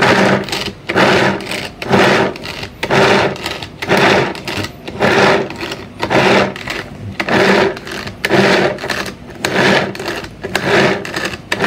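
Tupperware Speedy Chopper pull-cord food chopper being pulled again and again, its blades spinning and rattling through carrots in the bowl. It makes a whirring burst with each pull, roughly one a second.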